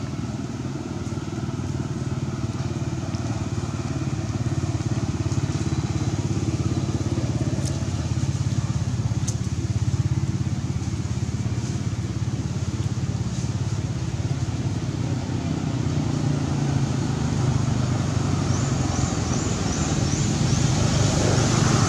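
An engine running steadily, a low even hum that grows a little louder toward the end.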